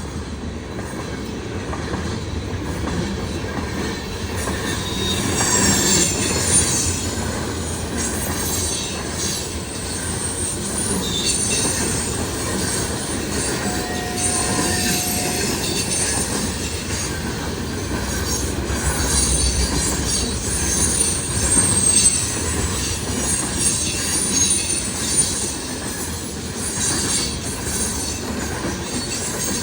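Freight train cars rolling past at a crossing: a steady rumble and clatter of steel wheels on rail, with high, wavering wheel squeals coming and going.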